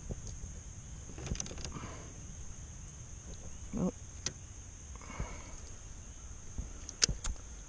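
Fishing rod and baitcasting reel handled and cast from a kayak: scattered sharp clicks and knocks, the loudest a pair of clicks near the end. Underneath, a steady high-pitched insect drone.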